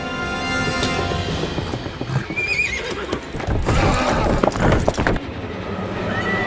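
A horse's hooves clattering in a hurried run, with a horse whinnying about two and a half seconds in and again near the end, over film score music.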